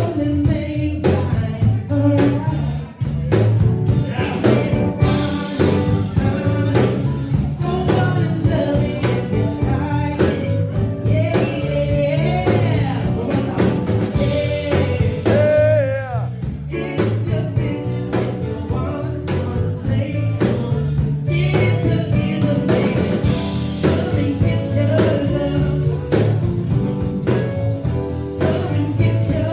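A song with singing over guitar, bass and drums.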